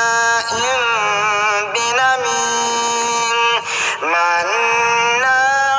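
Male voice reciting the Quran in a slow, melodic chanted style, drawing out long ornamented notes with brief breaks between phrases.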